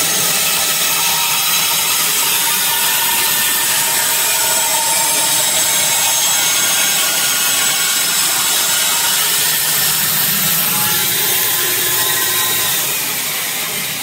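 Band saw running and cutting through a wooden board along a marked curve. It makes a steady, loud, hissing whine that dies away near the end.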